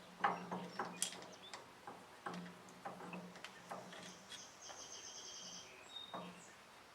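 Small scattered clicks and taps of hand tools and metal fittings being handled while a replacement carburetor is assembled, over a faint steady low hum. About four and a half seconds in, a faint high rapid chirping trill sounds for just over a second.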